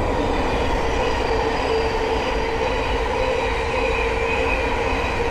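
Thameslink Class 700 electric multiple unit passing close by: a steady, loud rumble of wheels on rail with a held whine over it.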